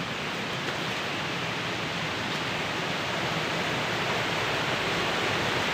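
Rain falling steadily on the forest foliage in a sudden shower, an even hiss that grows slightly louder.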